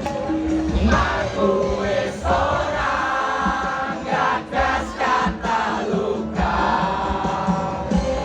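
A large concert crowd singing a song together in unison over the band's amplified music, with a steady bass beat underneath.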